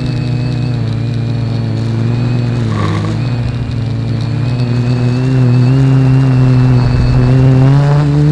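Reptile Aphid X450 quadcopter's motors and propellers, heard from the camera on board as a steady pitched hum. The pitch dips briefly about three seconds in, then rises and gets louder from about five seconds, climbing again near the end as the throttle is raised.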